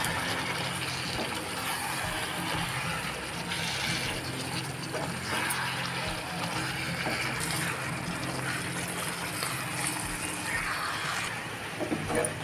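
Chicken pieces being stirred and turned in a hot pan with a spatula, wet scraping and sizzling that swells in several waves, over a steady low hum.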